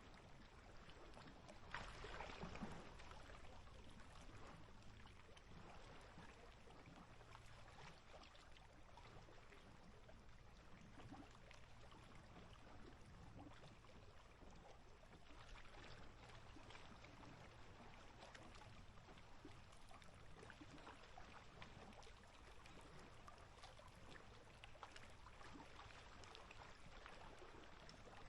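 Small waves lapping and popping at the lake's edge: a faint, steady patter of little splashes, with a slightly louder slosh about two seconds in.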